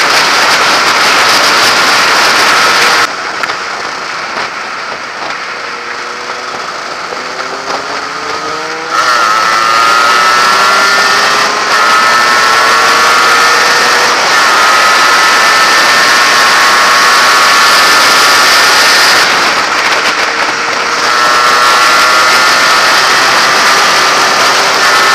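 Heavy wind rush on the microphone over a Yamaha RXS100's two-stroke single-cylinder engine, whose pitch climbs again and again as the motorcycle accelerates through the gears. The rush drops away for several seconds about three seconds in, then returns.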